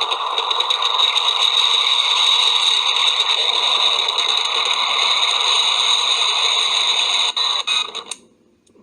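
Hissy, radio-like cockpit voice recorder playback: a steady noise with a high steady tone and some crackle, cutting off suddenly about eight seconds in.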